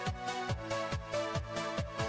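Electronic background music with a steady kick-drum beat, about two thumps a second, over sustained synth chords.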